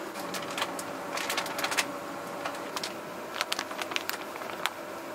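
Flour bag crinkling and rustling in gloved hands as flour is poured into a plastic mixing bowl: a run of quick, irregular crackles.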